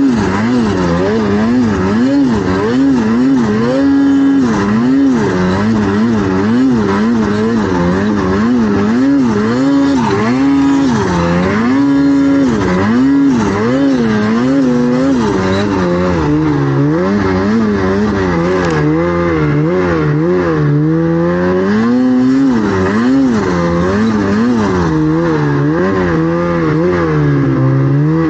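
Snowmobile engine running hard through deep powder, its pitch rising and falling about once a second as the throttle is worked; about halfway through it settles to a lower pitch.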